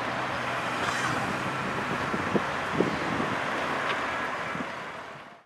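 Road traffic: cars moving slowly along the street with wind on the microphone, and two short knocks about halfway through. The sound fades out near the end.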